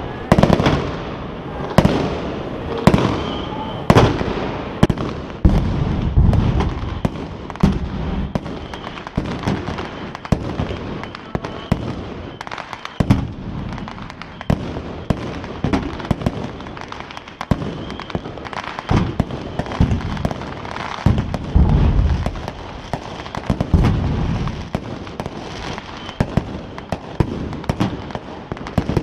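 Fireworks going off: sharp bangs about once a second at first, then a denser run of cracks mixed with deep booms.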